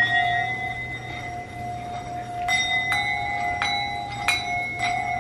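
Singing bowls struck with a mallet, ringing with long overlapping tones. The ring from an earlier strike carries over at first, then five strikes come in the second half, each renewing the ring.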